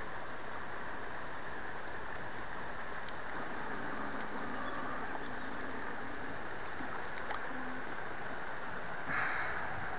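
Steady rushing of a small river running over a rocky riffle, with a short splash of water about nine seconds in as a trout is drawn into the landing net.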